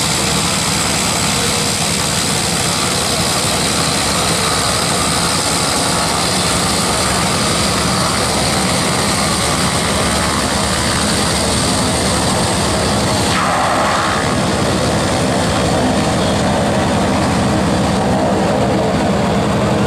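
Twin Garrett T76 turboprops of a North American Rockwell OV-10B Bronco running steadily while it taxis, a loud propeller drone under a high turbine hiss. The hiss thins out over the last few seconds as the aircraft turns.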